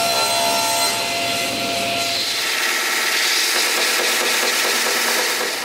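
Table saw running and cutting wood on a crosscut sled, a steady whine with noise, for about the first two seconds. Then an edge belt sander sanding the edge of a walnut board, a steady hiss.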